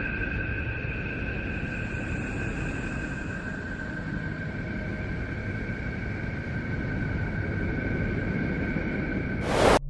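Spacecraft radio data turned into sound, presented as the sound of Neptune: a steady rumbling hiss with two held high tones over it, broken near the end by a short loud burst of noise that cuts off abruptly.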